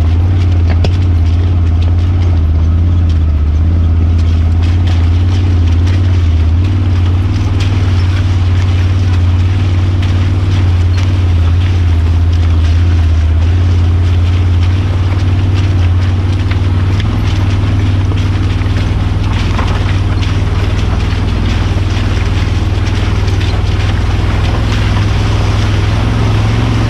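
Can-Am Maverick side-by-side's engine running at a steady low drone while driving slowly along a rough, wet dirt trail, heard from on board, with faint knocks and rattles over the rocky ground.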